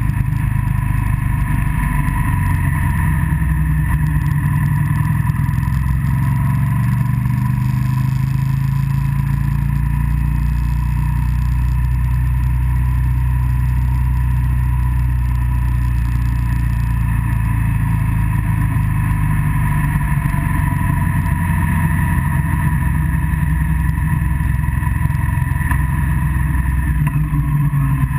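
Motorcycle engine running steadily at cruising speed, with wind rushing over the camera.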